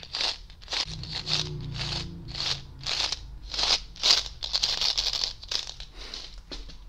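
Smarties candies rattling inside their cardboard tube as it is shaken close to the microphone, in an even run of short rattles about two or three times a second.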